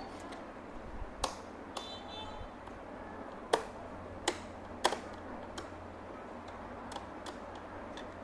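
Sharp mechanical clicks of the piano-key buttons on a Sony CF-1450 radio cassette recorder being pressed, several at irregular spacing, over a low steady hum.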